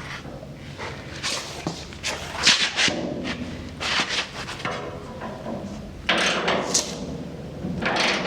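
Irregular clanks and rattles of metal hardware and hand tools as a suspension arm's bolt and rod end are fitted and tightened, about seven short bursts, the loudest a little after two seconds in.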